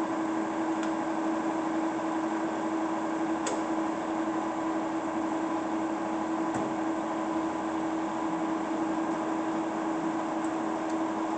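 Spindle head of a 3 hp variable-speed vertical milling machine running at a constant speed, giving a steady mechanical whine, with a few faint ticks.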